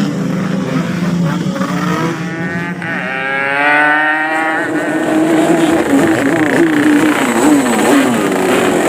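Yamaha RX-King two-stroke motorcycle engines revving, the pitch climbing in one long rev about three seconds in and then wavering up and down with repeated throttle blips.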